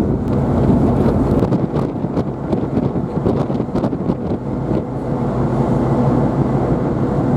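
Steady low hum of a ship's engines under way, with wind buffeting the microphone.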